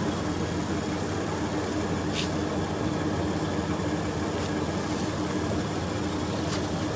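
A motor vehicle engine running steadily, a constant hum under even background noise.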